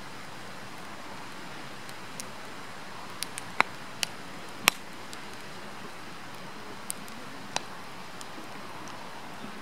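Firewood burning in a campfire: a steady hiss with sharp crackling pops, several close together a few seconds in and two more later.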